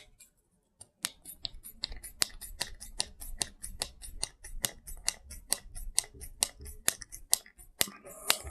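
Rapid, regular clicking, about three to four clicks a second, from a hand tool driving the small case screws into an RC car gear differential as the case is closed; a brief rustle of handling near the end.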